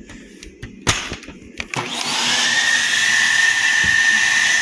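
A few clicks and a sharp knock, then about two seconds in the Bissell Healthy Home 16N5 upright vacuum's motor starts and spins up to a steady high whine over a strong rush of air.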